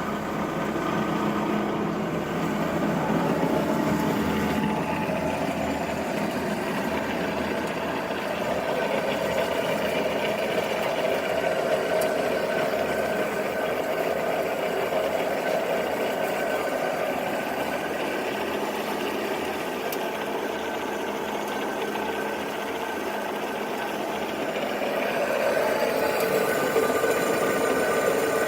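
Marvel 8 tilt-frame vertical band saw running, driven by its 1.33 hp three-phase electric motor: a steady machine hum.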